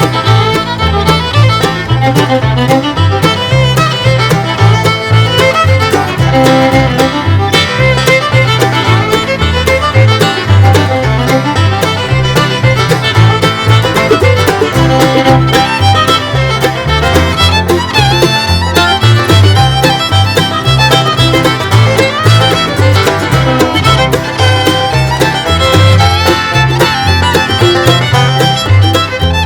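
Bluegrass music with fiddle, banjo, guitar and a steady walking bass line.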